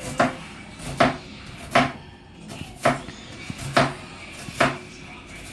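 A knife chopping on a cutting board in slow, evenly spaced strokes, about six of them.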